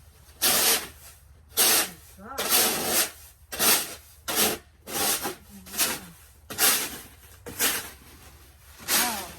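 Footsteps crunching in deep snow, about ten steps at roughly one a second, some with a short squeak.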